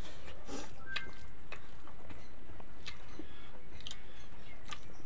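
Eating by hand: scattered small clicks and smacks of chewing and lips, over a steady background hiss.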